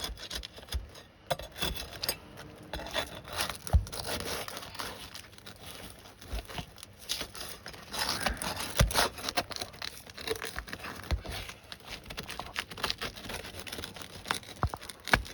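Roof shingles being pried up with a heavy-duty nail bar: irregular scraping, crackling and tearing of the shingle and the old tar felt beneath, with scattered knocks of the bar.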